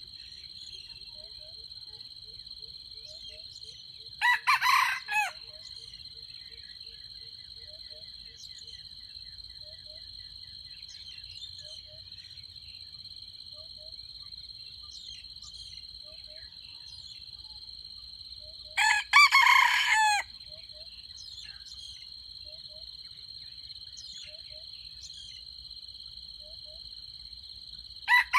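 Red junglefowl rooster crowing: two short crows about fourteen seconds apart, and a third beginning at the very end, over a steady high-pitched insect drone.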